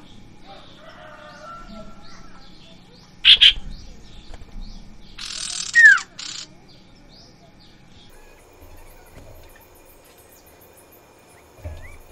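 A pair of sirtu ioras, male and female, calling: a run of short high chirps, broken by two loud harsh calls about three and five seconds in, the second with a falling whistle in it.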